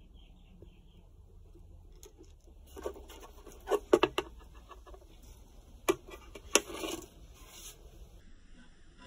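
A few sharp taps and knocks of a wooden ukulele being handled, bunched between about three and seven seconds in. Its bridge has come off and hangs loose on the strings, knocking against the wood as it is picked up and moved.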